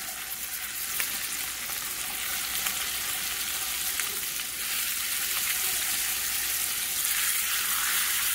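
Squirrel quarters sizzling as they fry meaty side down in hot butter and olive oil in a skillet, a steady hiss with scattered small crackles. The sizzle grows louder about halfway through as more pieces are laid in the pan.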